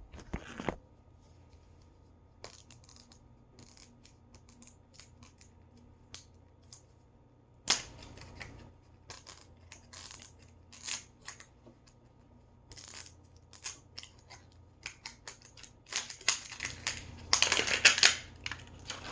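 Plastic toy packaging being handled and unwrapped by hand: scattered crinkles and sharp clicks, densest and loudest a few seconds before the end.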